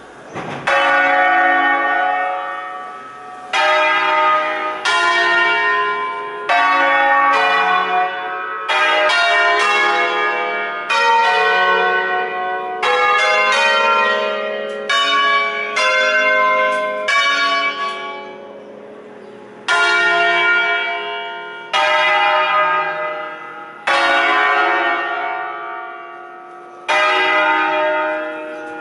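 Church bells from a ring of eight bronze Crespi bells cast in 1951, tuned in D-flat, swung on their wheels and struck one after another in a festive concerto. The strikes come in an uneven melodic sequence, sometimes several close together, each ringing on and fading.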